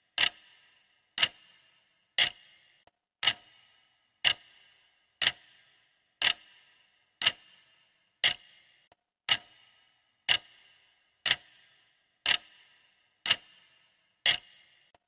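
Clock ticking once a second, each tick a sharp, bright click with a short fading tail.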